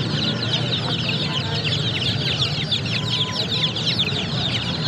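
A crowd of baby chicks peeping: many short, high, downward-sliding cheeps overlapping in a continuous chorus.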